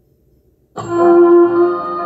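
Near silence for the first moment, then background music starts abruptly, with sustained keyboard-like chords that change partway through.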